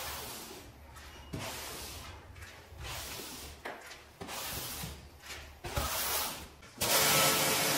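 Several scrubbing strokes across a shaggy rug, roughly one a second, each a short rush of noise. Near the end a machine motor starts abruptly and runs steadily and louder with a hum.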